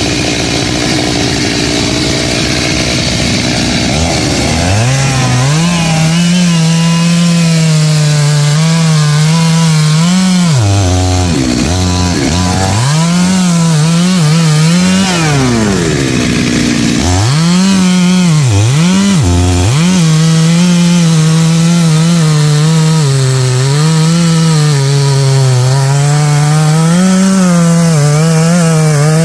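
Stihl MS 382 two-stroke chainsaw revving up about four seconds in and cutting into a tamarind stump, its engine note wavering under load. The revs drop and pick back up a few times.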